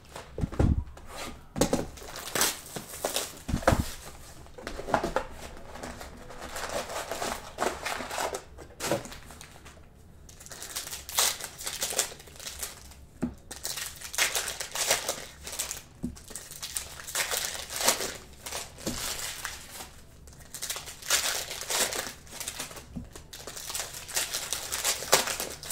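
Trading card packs and their plastic wrapping crinkling and tearing as they are handled, in irregular crackles, with a couple of soft thumps in the first few seconds.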